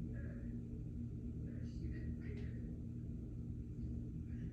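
Steady low hum with a few faint, soft high chirps about halfway through.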